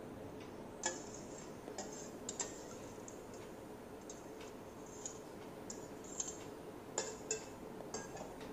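Soft, scattered clinks and scrapes of a metal spoon against a steel bowl and strainer as set curd is scraped out into a cotton cloth, with a few sharper taps about seven seconds in. A faint steady hum lies underneath.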